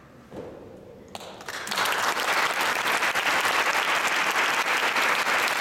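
Audience applause, breaking out about a second and a half in and quickly swelling to loud, steady clapping.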